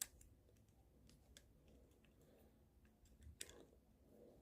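Faint, scattered ticks and scrapes of a metal pin picking lint off a ball mouse's plastic roller, with a small cluster of sharper clicks about three and a half seconds in.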